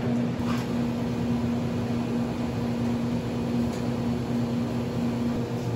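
Steady mechanical hum of restaurant kitchen equipment (ventilation and refrigeration) running, with one constant low tone over an even whooshing noise.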